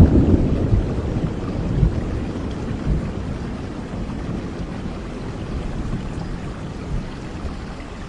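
Steady rain with a low roll of thunder that fades away over the first few seconds.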